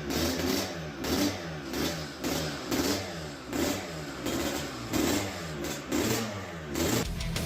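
2007 Kawasaki KX250's single-cylinder two-stroke engine revved over and over in short blips, its pitch rising and falling with each one. Guitar music comes in near the end.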